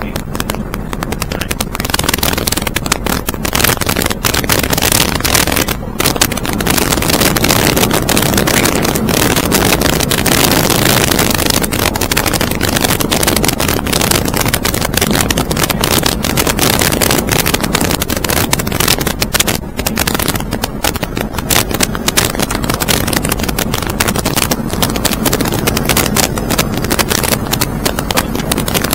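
Loud, steady rush of wind and engine noise in flight, with wind buffeting the microphone in rapid, irregular flutters.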